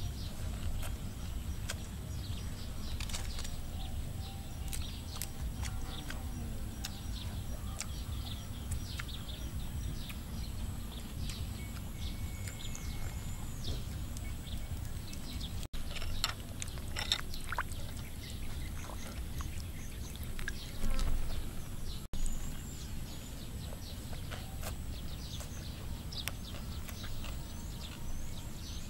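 Outdoor ambience: many short bird chirps over a steady low rumble, with a few soft clicks and rustles.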